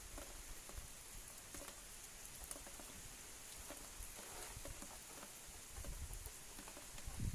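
Faint, steady rain with scattered drops pattering, over a soft hiss. A low wind rumble swells in near the end.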